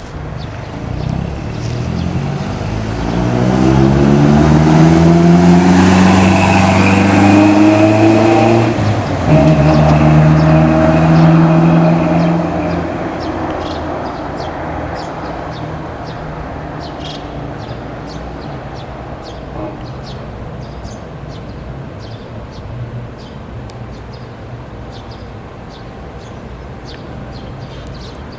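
Toyota 4Runner's 2.7-litre four-cylinder through Flowmaster 40 Series mufflers under hard acceleration: the exhaust note rises in pitch, drops suddenly about nine seconds in as with a gear change, pulls again, then dies away slowly over the following seconds.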